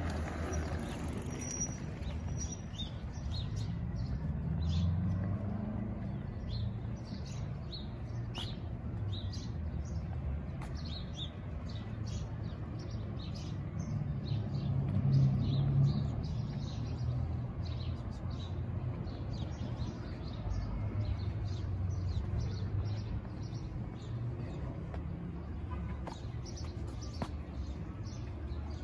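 Small birds chirping and twittering in quick, repeated short calls, over a steady low rumble.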